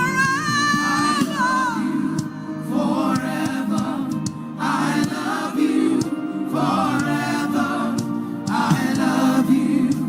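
Gospel worship singing: voices sing repeated short phrases over a steady low keyboard accompaniment.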